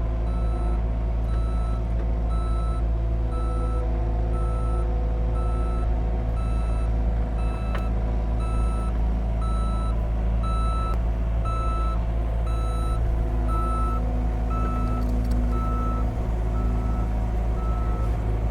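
Caterpillar 259D3 compact track loader reversing: its backup alarm beeps steadily, about once every 0.7 s, over the even running of its diesel engine.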